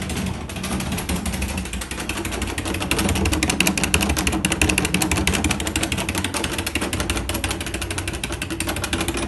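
Interior door rattling hard and fast in its frame, a dense, continuous clatter of many knocks a second, somewhat louder in the middle.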